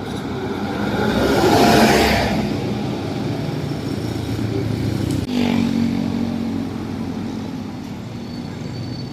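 Road traffic passing close by: one vehicle swells past about two seconds in, and a second, engine-toned vehicle goes by just after five seconds, over a steady background of traffic.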